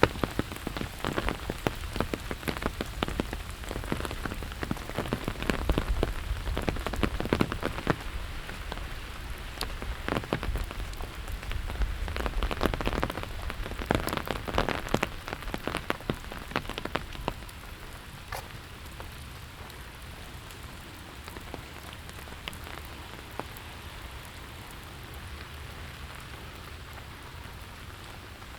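Steady rain falling, with many close, sharp drops hitting nearby surfaces. After about two-thirds of the way through, the close drops thin out and the rain settles to a quieter, even hiss.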